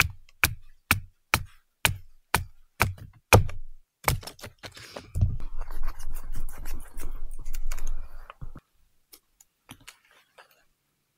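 Wood being split with a knife struck by a stick (batoning), an even knocking about two blows a second that stops about three and a half seconds in. Several seconds of scraping and rustling follow as the split wood is handled and shaved, then a few faint clicks.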